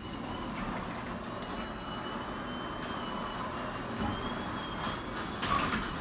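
Ceiling-mounted garage door opener running steadily as it lowers a sectional garage door, working normally again after its error code was reset.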